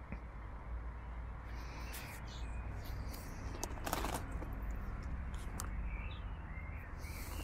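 Handling noises from gloved hands working a removed front shock absorber and its rubber bump stop: a few light clicks and one sharper knock about four seconds in, over a low steady rumble.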